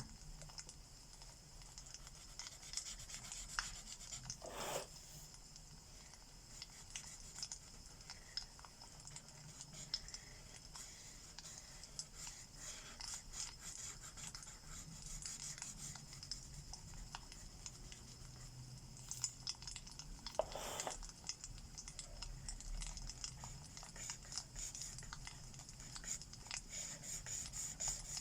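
Alcohol marker tips scratching and rubbing across paper in short strokes, over the scattered small crackles of a wood fire, with two louder scrapes about five seconds and twenty-one seconds in.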